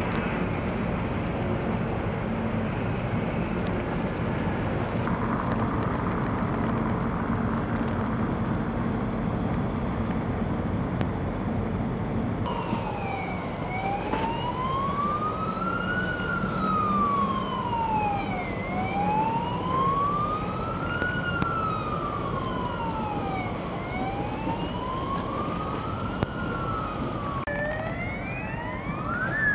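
A steady low rumble, joined about halfway through by an emergency vehicle siren wailing, slowly rising and falling about every five seconds. Near the end a second siren comes in, rising faster.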